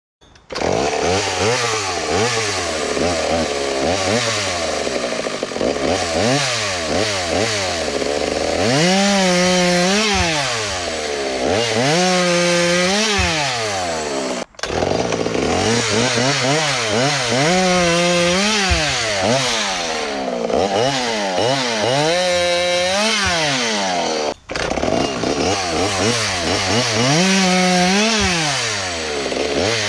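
Small two-stroke chainsaw running on methanol, revving up and dropping in pitch over and over as it cuts through wood, with full-throttle stretches held between the drops. The sound cuts off sharply for an instant twice.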